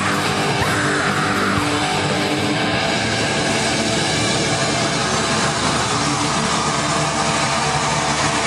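Loud live heavy-metal rock music with distorted electric guitar and a drum kit, playing steadily without a break.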